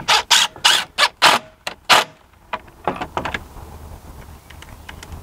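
Cordless DeWalt driver driving screws into a plastic railing bracket in a quick series of short trigger pulses, about three a second, stopping about two seconds in; a few lighter clicks and a short rattle follow around three seconds in.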